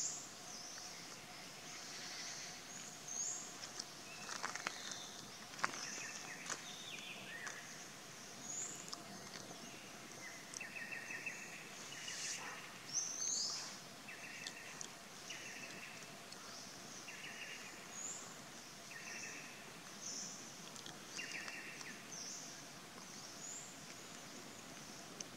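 Outdoor forest ambience. Short high chirps rise in pitch now and then. Through the middle, a short buzzy call repeats about every second and a half, and a few sharp snaps or clicks come early.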